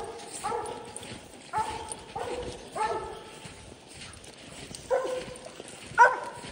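American Leopard Hounds barking treed at a raccoon up a tree: a run of short, pitched barks about half a second apart, a pause, then two more barks near the end, the last the loudest.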